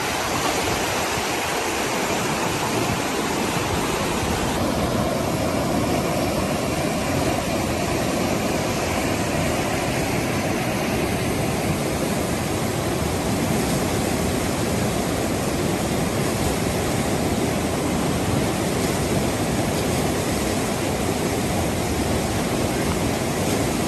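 Fast, muddy flash-flood torrent rushing and churning across a washed-out road: a steady, loud rush of water.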